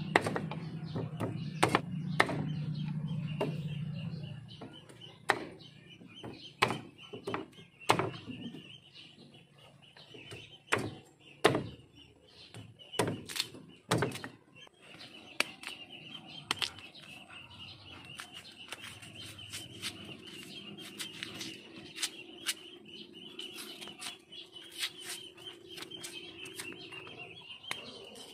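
Bolo knife chopping cassava roots against a bamboo-slat table: a dozen or so sharp knocks through the first half, thinning to light taps later. A steady high-pitched chirping runs in the background through the second half.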